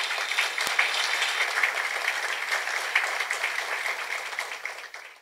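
Audience applauding, the clapping fading near the end before it cuts off suddenly.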